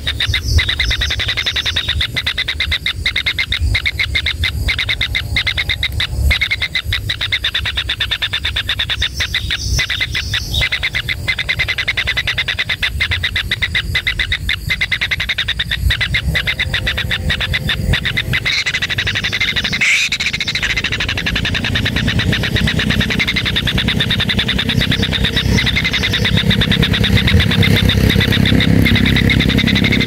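White-throated kingfisher chicks calling continuously in the nest, a rapid pulsing buzz held at a steady pitch. A low rumble underneath grows louder over the last several seconds.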